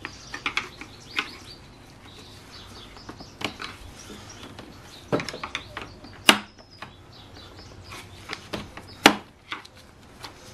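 Flathead screwdriver prying at a plastic retaining clip that holds the fan shroud to the radiator: scattered clicks and scrapes of metal on plastic, with a few sharp knocks, the loudest about six and nine seconds in.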